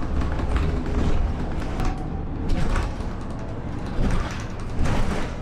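Ride noise inside a city transit bus: a steady low engine and road rumble with rattling, and several sharp clunks in the second half.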